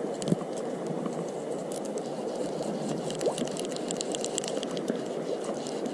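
Steady rush of a small stream, with a rapid, irregular patter of light clicks and taps through the middle.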